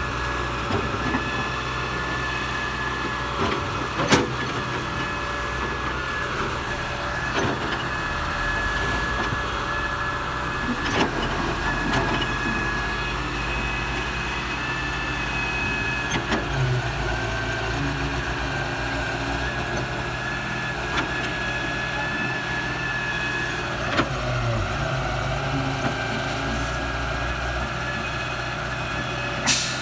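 Excavator's diesel engine running steadily with a constant whine, and a few sharp knocks along the way.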